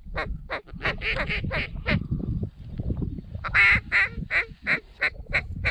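A rapid series of short Canada goose honks and clucks, about three calls a second, with a brief lull about two seconds in and the loudest honks around three and a half seconds, over a low rumble.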